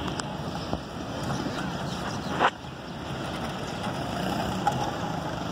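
Passenger train pulling away along the tracks: a steady running noise, with one brief sharp knock about two and a half seconds in.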